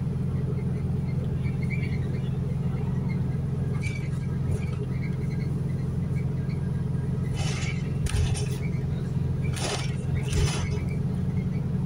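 Inside a New Routemaster diesel-electric hybrid double-decker bus under way: a steady low drone of drivetrain and road noise, with a few short rattles in the second half.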